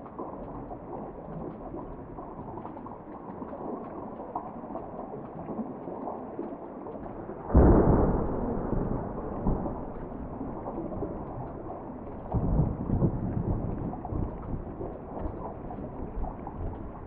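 Steady rain heard from indoors. About seven and a half seconds in, a sudden deep rumble starts loudly and fades over a couple of seconds, and a smaller low swell follows around twelve seconds.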